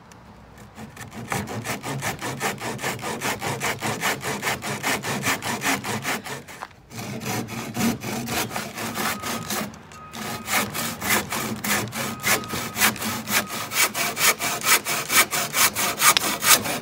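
Handsaw cutting through a painted wooden post, sawing off its top in fast, even back-and-forth strokes. The strokes start light and grow heavier after about a second, and pause briefly twice, around the middle and again about ten seconds in.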